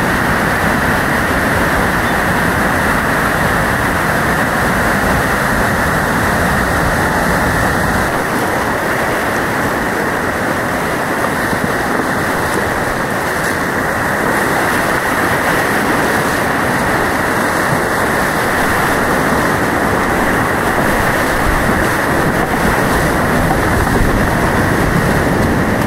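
Steady, loud rush of whitewater rapids, heard from a kayak running through them.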